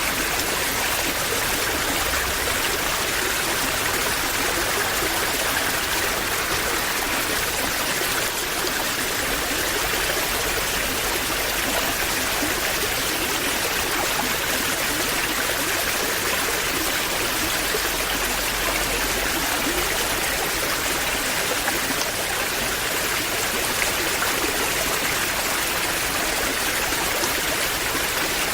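Waterfall: a steady, even rush of falling and splashing water that does not let up.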